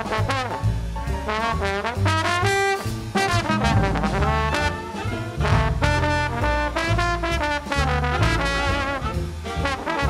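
Jazz trombone solo over a big band rhythm section of bass and drums. The trombone plays quick runs of short notes, sliding between some of them, over a moving bass line.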